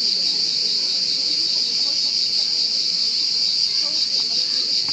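A chorus of cicadas singing: one loud, steady, unbroken high-pitched buzz.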